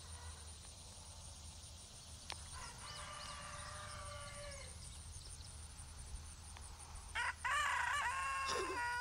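Two roosters crowing in turn. A fainter crow comes about three seconds in, and a louder crow starts near the end.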